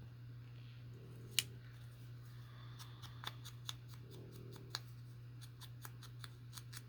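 Scissors snipping paper: one sharp snip about a second and a half in, then a quick run of short snips, two to three a second, through the second half. A low steady hum lies underneath.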